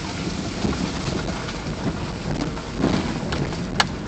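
Car rolling slowly over an unpaved track, heard from inside the cabin: a steady rumble of tyres on the rough surface over a low engine hum, with a few small knocks and one sharp click near the end.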